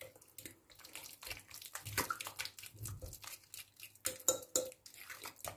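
Metal fork clicking and scraping against a glass mixing bowl while mashing white cheese into yogurt: a run of quiet, irregular taps, a few sharper clinks about four seconds in.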